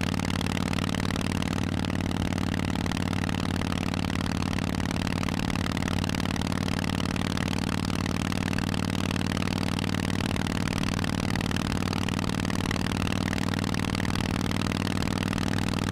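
Harley-Davidson Forty-Eight's air-cooled 1200 cc V-twin running through a Vance & Hines exhaust, holding a steady engine note at a constant speed with no revving.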